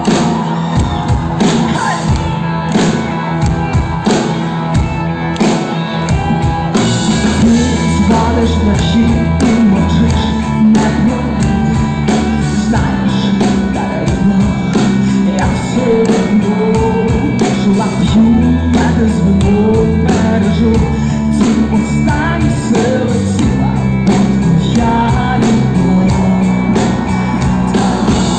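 Live rock band playing with a woman singing, over a steady drum beat; a heavier bass line comes in about seven seconds in.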